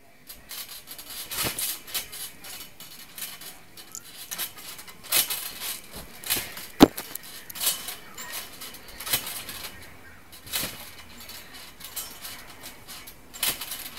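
Handling noise of a phone being held and covered, its microphone rubbed: irregular clicks, knocks and scraping rustles, with a few sharper knocks standing out.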